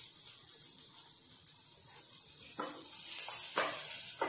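A lump of butter sizzling quietly as it starts to melt in a hot ceramic-coated frying pan, a steady high hiss. A few soft knocks in the second half as the pan is shifted.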